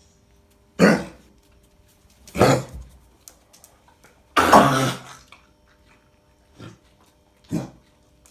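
Cocker spaniel coughing from kennel cough, in five separate coughing fits. The longest and loudest comes about four and a half seconds in, and a fainter one comes shortly after.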